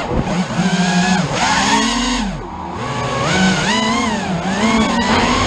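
A motor revving up and down over and over, its pitch rising and falling about once a second, with a brief dip about halfway through.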